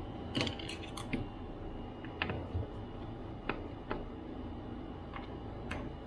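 Irregular small clicks and taps of hand work on an opened MacBook Pro: tools and small parts clicking against the laptop's case and keyboard. There is a cluster of clicks in the first second or so, then single ticks about once a second, over a steady low hum.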